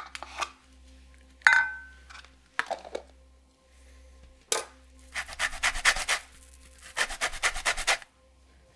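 An orange being zested on a flat handheld metal grater: two runs of quick, rasping strokes of about a second each in the second half. Earlier comes a sharp clink with a short ring about a second and a half in, then a few softer knocks.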